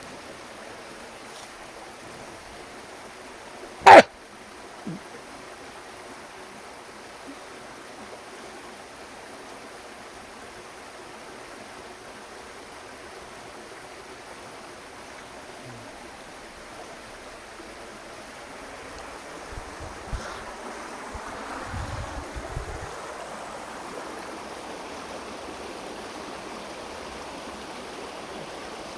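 Steady rush of a flowing stream, with one sharp knock about four seconds in and a few low bumps as the rush grows slightly louder about two-thirds of the way through.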